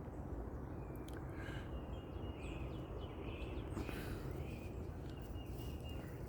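Small birds chirping in short, high calls scattered throughout, over a steady low background noise.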